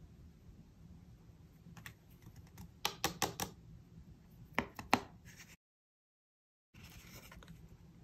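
Sharp little clicks and taps from handling a card panel and a small jar of embossing powder on paper: a quick run of about five about three seconds in, and three more a second and a half later. The sound then cuts out completely for about a second.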